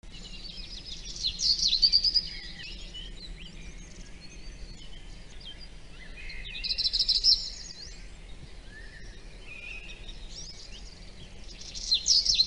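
Songbirds chirping and singing in three louder bursts about five seconds apart, with quieter scattered chirps between them.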